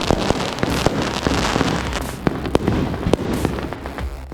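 Fireworks going off: a rapid run of sharp bangs and pops over dense crackling.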